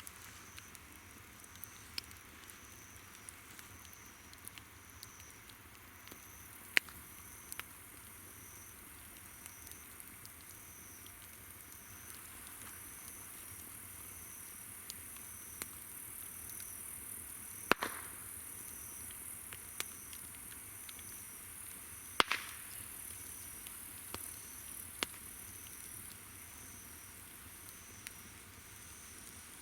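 Wood campfire crackling, with scattered sharp pops, the loudest about 18 and 22 seconds in. Behind it insects call: one chirps in a steady, evenly repeated high pulse, over a continuous high insect hiss.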